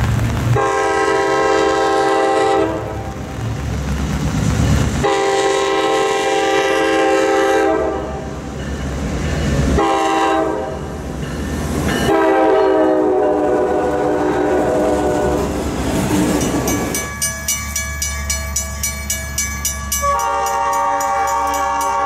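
Diesel locomotive's multi-note air horn sounding three long blasts as the train approaches and passes, the last one sagging slightly in pitch as it goes by. Then comes a quick regular clatter of wheels over the rails, and a second, differently pitched horn starts near the end.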